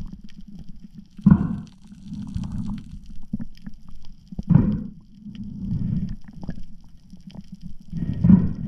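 A snorkeling spearfisher breathing hard through a snorkel, heard through a waterproof camera housing: a sharp breath about every three to four seconds, with a low rushing sound of breath and water between.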